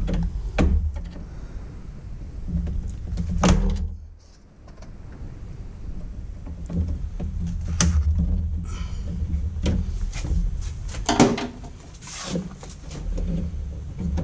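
Hands working inside a metal electrical sub panel among breakers and wires: scattered clicks, knocks and clunks of metal and plastic, the loudest about three and a half seconds in and again about eleven seconds in. A steady low hum runs underneath.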